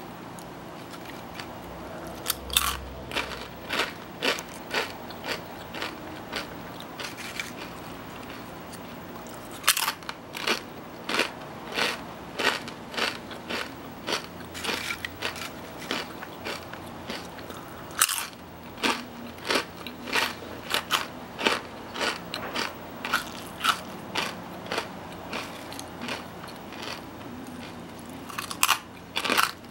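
Lay's Kettle Cooked Lattice Cut potato chips being bitten and chewed: runs of sharp, super crunchy crunches, several a second, with a few louder bites along the way.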